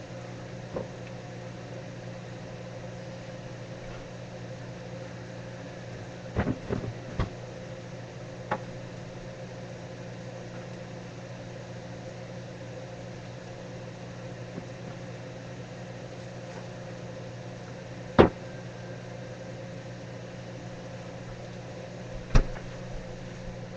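A steady low hum with a few scattered sharp knocks and clicks: a small cluster of knocks early on, and two louder single knocks later.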